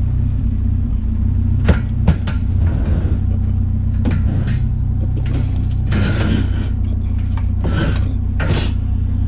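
Vehicle engine idling with a steady low hum while a bulky scrap item is shifted about in the load: two sharp knocks about two seconds in, and scraping and rustling several times in the second half.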